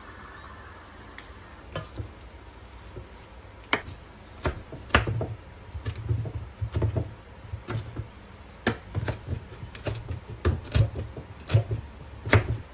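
Chef's knife chopping basil leaves on a wooden cutting board: irregular knocks of the blade against the board, starting about two seconds in and coming in quick runs.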